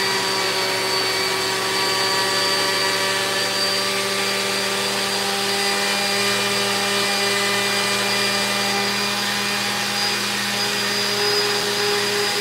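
Countertop blender motor running at a steady speed, blending pineapple chunks with a little water into a purée.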